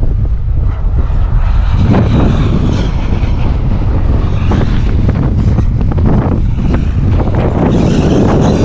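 Wind buffeting the microphone. From about two seconds in, an electric RC monster truck joins it, driving close by with a rough, uneven noise.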